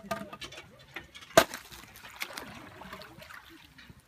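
A wooden plank striking and breaking thin lake ice: one sharp crack about a second and a half in, with small clinks of ice fragments between.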